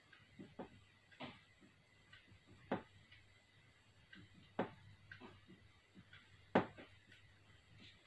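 Marker pen writing on a whiteboard: faint, irregular taps and short scratchy strokes as letters are written, with a few sharper taps.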